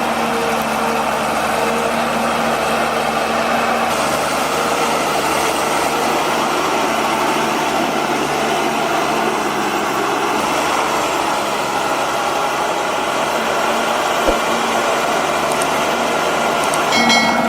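Heavy machine's engine running steadily at a constant level, with a short high-pitched squeal near the end.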